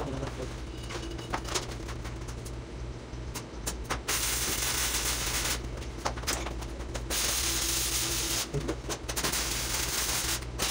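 Stick-welding arc crackling and sputtering from an E6011 electrode. It breaks off briefly about three times and strikes up again, over a steady low hum.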